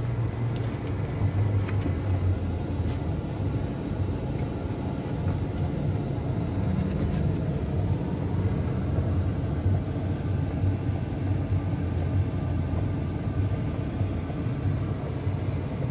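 Steady low rumble of a van's engine and running gear, heard from inside the cabin.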